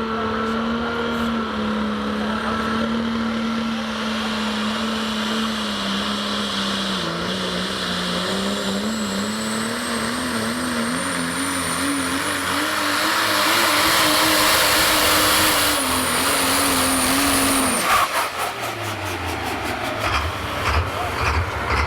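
Engine of a pulling vehicle running hard under load: its pitch climbs in steps while a high whine rises slowly above it, growing louder, until it shuts off abruptly about eighteen seconds in. Rapid, even pulses follow near the end.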